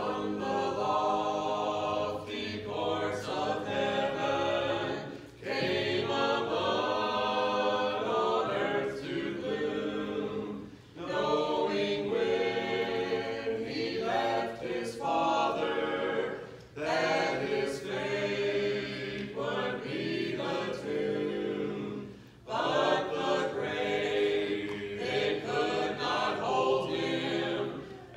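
A small vocal group of four voices, men and a woman, singing in harmony a cappella from printed sheets, in long held phrases with short breaths between them about every five to six seconds.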